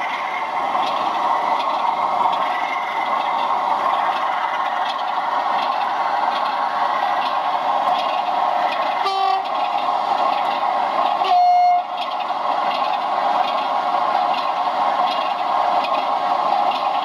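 Steady running noise of a 00 gauge model train, broken by two short horn blasts from a sound-fitted model diesel locomotive: a brief one about nine seconds in and a louder, slightly longer one about two seconds later.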